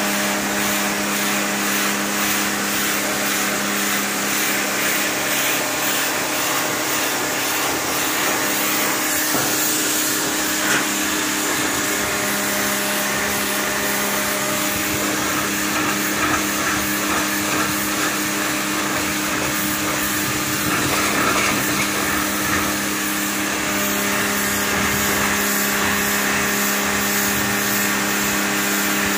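Takara Europa electric pressure washer running with a steady motor-and-pump hum, its jet hissing as it blasts algae off concrete paving slabs. The low hum weakens through the middle stretch.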